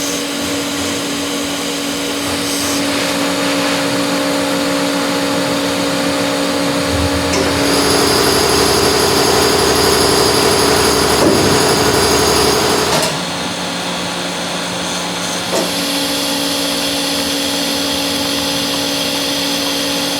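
Electric power tool motor running steadily with a hum, getting louder and higher-pitched for about five seconds in the middle before dropping back.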